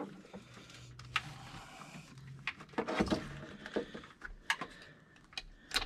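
Scattered clicks and light knocks of battery cable terminals and hardware being handled on the posts of a bank of marine batteries, a few sharp ones about a second in and several more in the second half.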